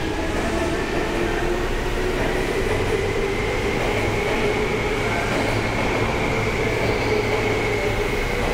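Seibu 2000 series electric commuter train in a station: a steady running rumble with a motor whine that slowly rises in pitch.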